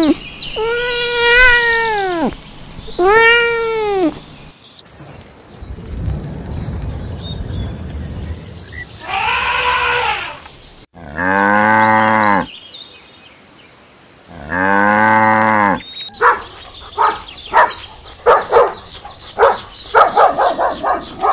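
A run of animal calls. First, three drawn-out meows from cats that are tussling. Around the middle comes a high call from a young elephant, then two long, low moo-like calls. Near the end a dog barks rapidly many times.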